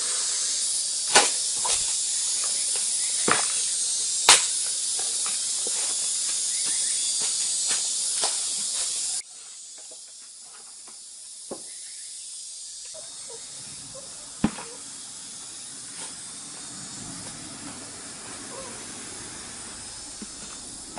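A metal shovel digging and scraping into loose soil, with a few sharp strikes, over a steady high hiss. About nine seconds in the hiss drops away suddenly, leaving a quieter background with occasional single knocks.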